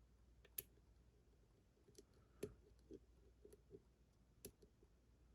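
Faint, irregular clicks of a steel hook pick tapping and lifting the pins inside a six-pin lock under top-of-keyway tension, with about ten light ticks spread unevenly as the pins are probed for the one that is binding.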